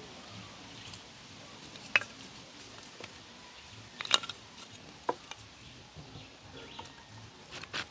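Sticks of firewood knocking against each other and the stones as they are laid in a fire pit: a handful of separate sharp knocks, the loudest about four seconds in.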